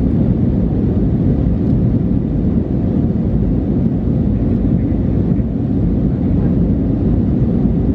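Steady low rumble of an Airbus A319-112's CFM56 jet engines and rushing airflow, heard inside the cabin as the airliner climbs through cloud.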